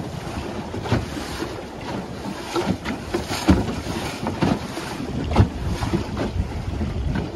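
Wind buffeting the microphone over water rushing and splashing along a small sailing dinghy's hull, with irregular slaps about once a second as the bow meets the waves of a container ship's wake.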